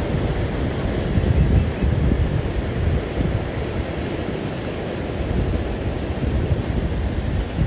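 Ocean surf washing over shoreline rocks, a steady loud rush, with wind buffeting the microphone in gusts.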